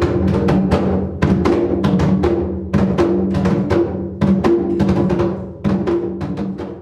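Atabaque, the tall Afro-Brazilian candomblé drum, struck in a fast, uneven rhythm, each stroke ringing with a low tone. It starts abruptly and drops off right at the end.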